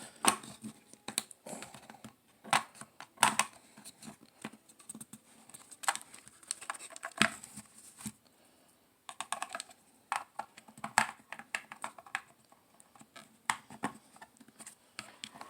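Irregular small plastic clicks, taps and scrapes as a flat cell-phone-style battery is pushed and worked into the plastic battery compartment of a small portable radio, with a short pause about halfway through.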